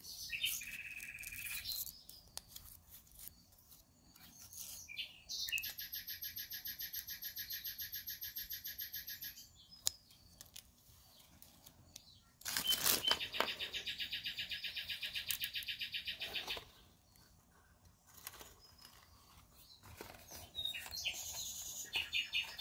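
A bird singing: short high chirps, then two long, evenly pulsed trills of about four seconds each, the second louder.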